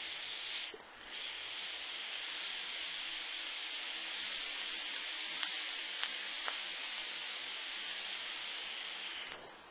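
Rebuildable dripping atomizer firing during a long direct-lung draw: a steady hiss of air and coils sizzling on the silica wicks, with a few faint crackles. A short puff of about half a second comes first, then after a brief gap a long, even draw of about eight seconds that cuts off suddenly near the end.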